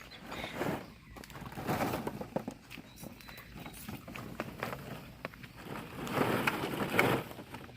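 Hollow plastic ball-pit balls rattling, crinkling and crunching in uneven bursts as puppies move about in the pit and chew on them.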